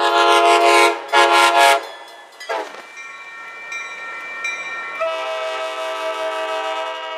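Locomotive air horn sounding: a long blast and a shorter one in the first two seconds. After a brief lull a horn sounds again, fainter at first, then a long steady blast from about five seconds in.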